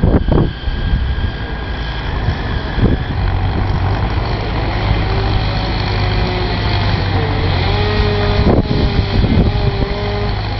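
Heavy construction machinery engine running steadily at idle, a continuous low hum, with a faint wavering whine over it from about halfway.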